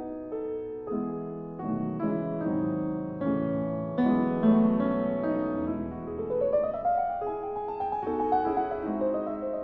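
Background piano music playing a melody, with a rising run of notes about two-thirds of the way through.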